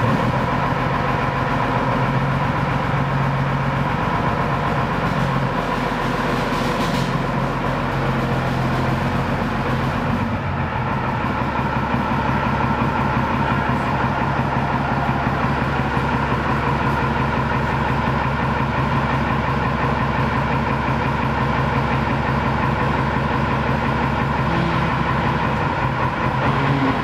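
A ZSU-23-4 Shilka's six-cylinder diesel engine running loudly and steadily, with a fast, rattly beat. Its deepest note shifts about ten seconds in.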